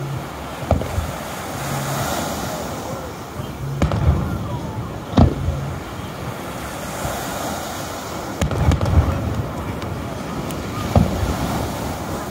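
Aerial fireworks shells bursting in a string of sharp booms, a second or a few seconds apart, the loudest about five seconds in and several close together around eight to nine seconds.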